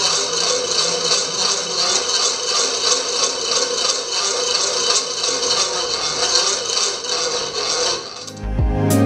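Loud, continuous rattling scrape of a stick rubbing over the threads of a plastic bottle cap as a cut plastic bottle base spins on a wooden skewer axle. It stops about eight seconds in, and music starts near the end.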